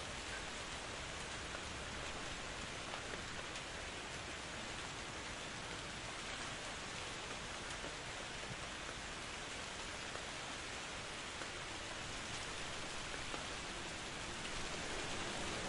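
Steady rain falling: an even hiss with scattered faint drop ticks, growing slightly louder near the end.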